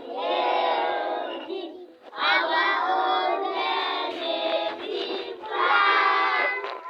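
A group of primary school children singing the national anthem together, in loud sung phrases with a short break about two seconds in.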